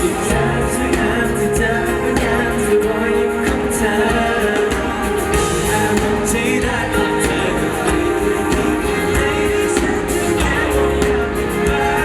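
Pop song with singing over a full band mix.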